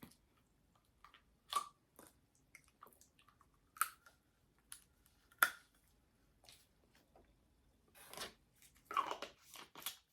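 Sparse small clicks, taps and crunches of food and things being handled close to the microphone, with a short rustling cluster about eight to nine seconds in.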